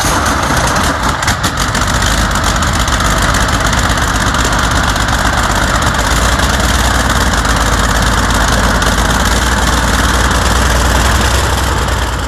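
Soviet V-55 V12 tank diesel running unmuffled on a test stand, its exhaust blowing straight out of the open manifolds. It has just caught, runs a little unevenly for the first second or two, then settles into a steady, loud idle after its timing has been adjusted.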